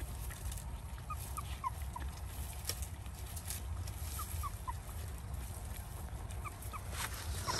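Short squeaky animal calls in groups of three or four, each a quick falling note, over a steady low rumble.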